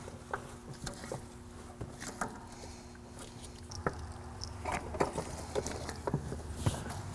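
Scattered light clicks and taps of a steel brake line and a hand tubing bender being worked by hand, a few sharper ones in the second half, over a faint steady hum.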